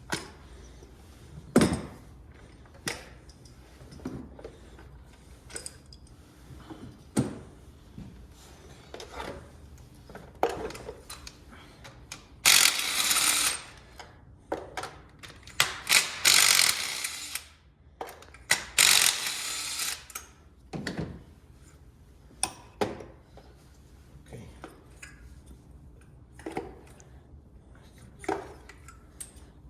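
Socket ratchet on spark plugs being removed: scattered clicks and knocks of tools, with three runs of rapid ratchet clicking about halfway through.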